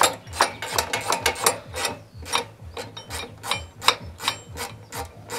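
Ratchet wrench clicking in quick, repeated strokes, about three a second, as it works the lower shock absorber bolt of a Sachs Speedjet RS scooter loose.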